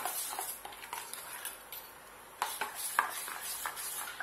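Steel spoon stirring and scraping a thick curd-and-gram-flour batter in a stainless-steel bowl, with light clinks of spoon against bowl and a brief pause in the middle.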